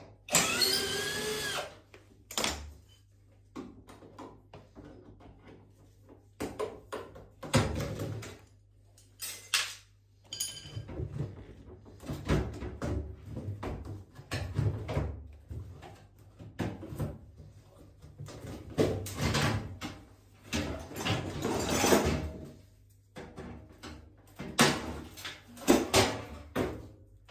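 Power drill-driver running in short bursts, the first one sliding up and down in pitch, mixed with irregular knocks and clatter of metal and plastic parts being handled while a washing machine tub is taken apart.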